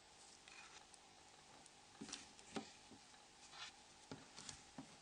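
Faint, scattered small clicks and taps of plastic Nokia E70 phone parts being handled as the LCD is pushed out of the flip module assembly, about half a dozen of them after the first two seconds.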